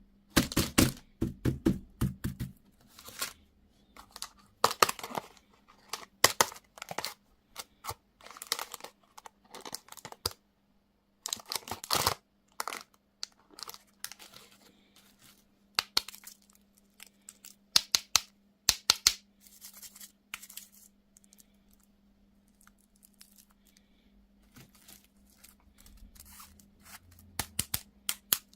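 Candy wrappers being torn open and crinkled by hand in irregular bursts of crackling, quieter for a few seconds after about two-thirds of the way in.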